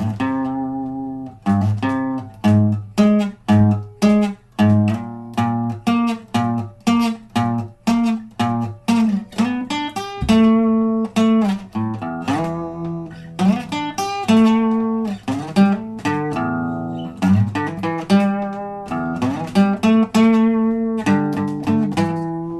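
Solo acoustic guitar played as an instrumental jam: a steady run of picked notes and chords that ring on, with more held notes in the second half.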